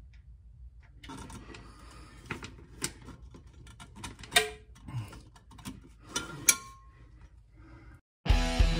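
Small metallic clicks and clinks of a bolt and hand tools being worked against steel suspension hardware, with two brief ringing metal taps, about four and six and a half seconds in. Near the end it cuts to rock music with electric guitar.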